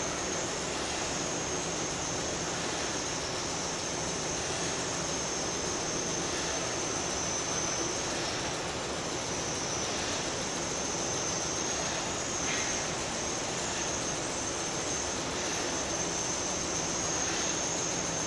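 Small electric motors in a found-object sound sculpture running continuously: a steady whirring noise with a high, slightly wavering whine over it.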